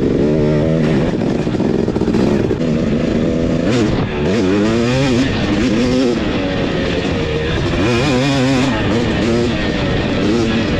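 A Husqvarna TC250 two-stroke dirt bike engine under way, its pitch rising and falling again and again as the throttle is opened and closed.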